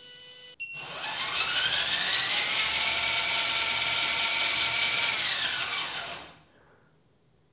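Small DC motor driving a 3D-printed plastic gear through a pinion: a high whine with gear-mesh hiss that rises in pitch as it spins up over the first couple of seconds, holds steady at high speed, then winds down and stops about six seconds in. The gear is turning very fast, with too little reduction.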